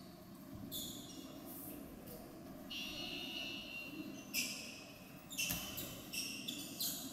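Sneakers squeaking on a hardwood basketball court during play, several short squeaks, loudest about four and a half seconds in and again just after five seconds, with a few thuds of the ball over a low murmur from the gym.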